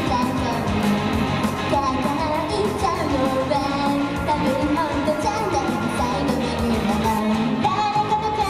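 Young women singing an upbeat J-pop idol song live into handheld microphones over a pop backing track with a steady beat, heard through the stage PA.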